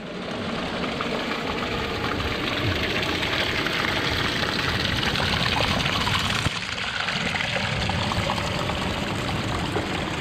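Small waterfall splashing, recorded up close: a thin stream of water falling and trickling over sticks and mossy rock, steady, with a brief dip in level about six and a half seconds in.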